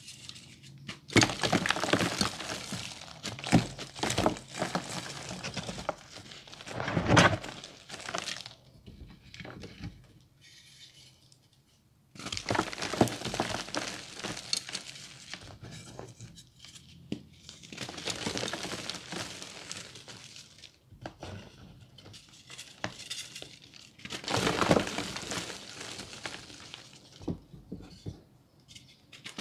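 Reformed gym chalk being crushed and crumbled by hand in a heap of chalk powder: dense crunching and crackling in long bursts, with a near-silent pause of about two seconds near the middle.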